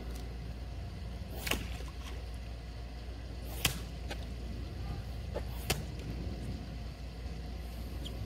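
A steady low outdoor rumble with three sharp clicks, about two seconds apart.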